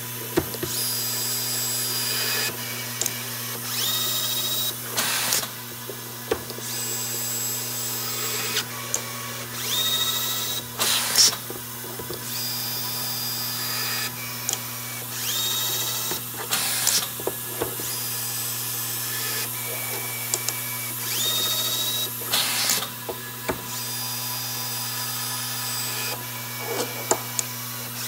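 DC electric screwdriver of an automatic-feed threaded insert driver running in repeated cycles, driving threaded inserts into a plastic part to set torque and then reversing to free the bit. Each cycle, about every five or six seconds, brings a short rising whine and a brief hiss, over a steady low hum.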